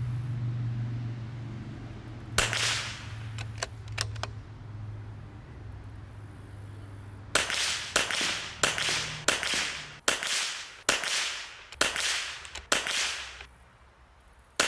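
.22 LR rifle shots: a single shot about two and a half seconds in, a few light clicks, then a quick string of about eight shots, each under a second apart. A low steady hum runs under the first half and stops about seven seconds in.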